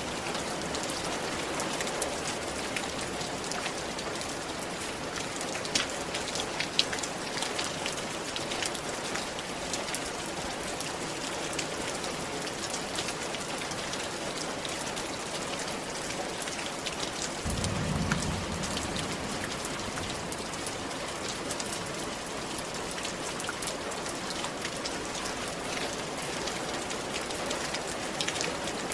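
Steady rain falling on a roof: an even hiss dotted with many small, sharp drop taps. A little past halfway, a short low rumble lasts about two seconds.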